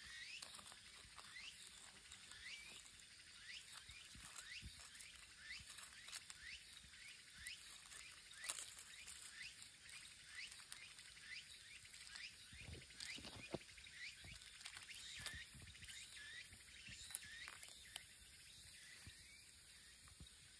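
Faint outdoor ambience with a long, even series of short rising chirps, about two a second, from an unseen animal, thinning out near the end. A few soft ticks and rustles sound midway.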